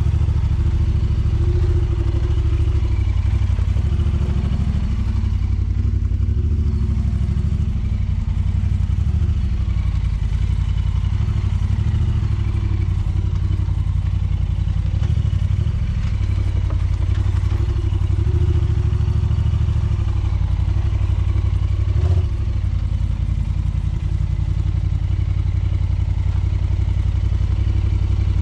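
Side-by-side UTV engine running steadily at low speed while crawling over a rough dirt trail, as a low drone. There is one knock a little past two-thirds of the way through.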